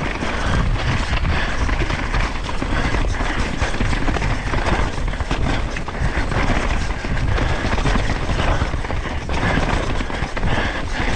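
Downhill mountain bike descending a rough, wet trail, heard from a GoPro on the bike or rider: steady wind rumble and tyre noise with frequent knocks and rattles from the bike.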